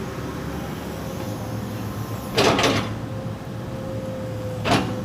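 Excavator engine running with a steady hum, and two loud knocks from the logs being handled, the first about halfway through and the second near the end.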